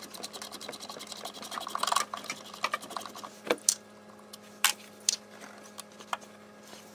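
Hands working among plastic engine-bay parts and wiring in a car's engine bay: a fast run of rattling clicks for about the first two seconds, then a few separate clicks and knocks.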